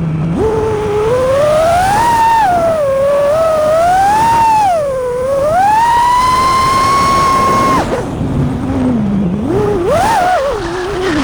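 FPV quadcopter's four brushless motors (T-Hobby 2208 1750kv on a 6S battery, spinning HQ J37 props) whining, the pitch rising and falling with the throttle. About eight seconds in the throttle is chopped and the pitch drops low, then quick punches send it climbing again near the end.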